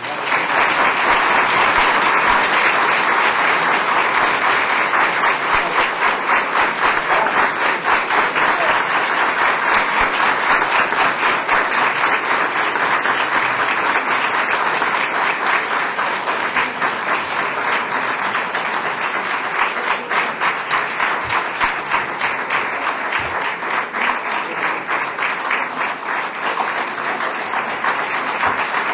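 An audience applauding: many hands clapping together in a sustained, steady round of applause.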